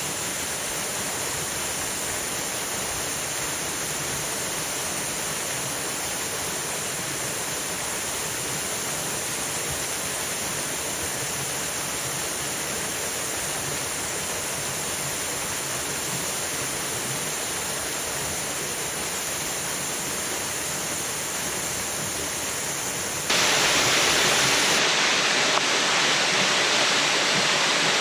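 Small waterfall in a forest mountain stream: a steady, even rush of falling water. About 23 seconds in it turns abruptly louder and brighter.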